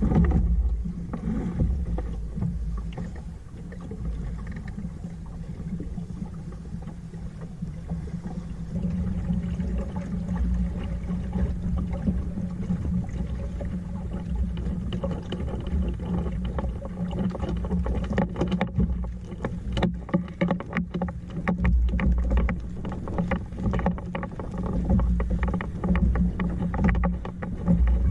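Water rushing and slapping against the hull of a small wooden sailing dinghy underway, with wind buffeting the microphone. From about 18 seconds in, a run of irregular knocks and splashes joins it.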